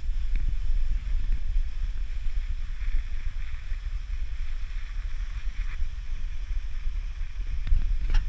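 Skis sliding and scraping on groomed snow during a downhill run, under a steady low rumble of wind on the microphone, with a few sharp clicks near the end.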